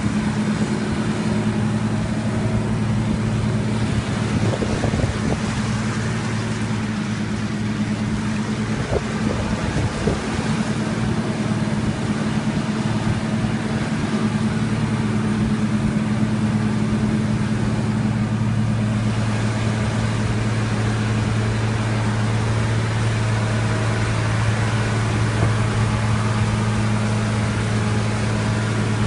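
Fiat 160-90 DT tractor's diesel engine running steadily at constant speed with an even low hum.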